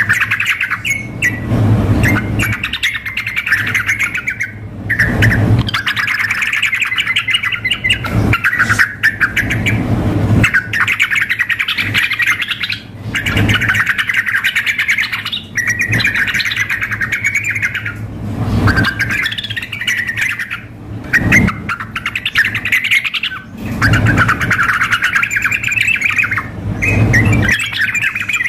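Yellow-vented bulbuls (trucukan) singing loudly in bubbly, chattering phrases one after another, each a second or two long with short breaks: a male in energetic contest song mixed with a female's calls.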